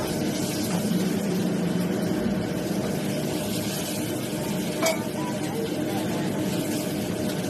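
Commercial gas wok range and kitchen extractor hood running with a steady hum, while food sizzles and is stirred in a carbon-steel wok. About five seconds in a metal spatula strikes the wok once with a sharp clink.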